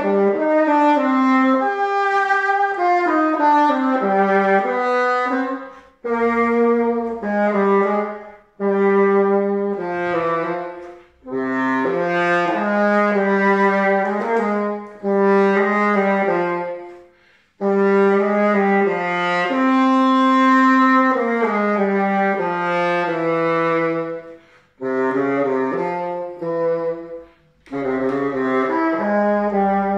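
Bassoon playing an unaccompanied solo line of moving notes, in phrases broken by short pauses for breath, about six times over the span.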